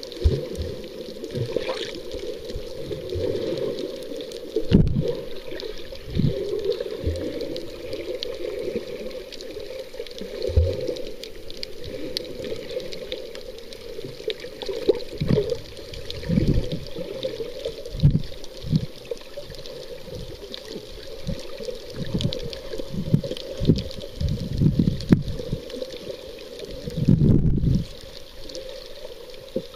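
Muffled underwater water noise: sloshing and gurgling, with irregular low thumps as the swimmer moves through the water, loudest a few seconds before the end.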